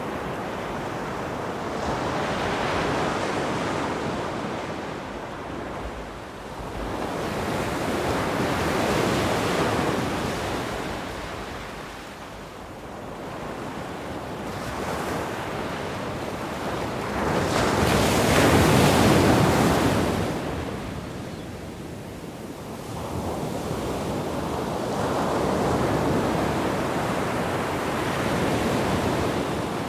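Sea waves breaking and washing on a shore, the surf swelling and ebbing every five to six seconds. The largest wave comes a little past the middle.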